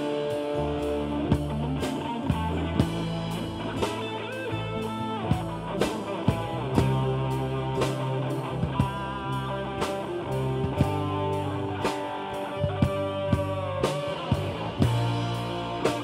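Rock music with electric guitar playing over a drum kit keeping a steady beat.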